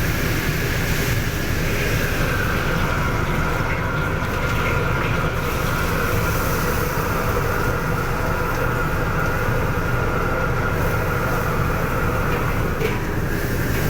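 Steady, loud low rumble of kitchen equipment, with a faint high whine held throughout.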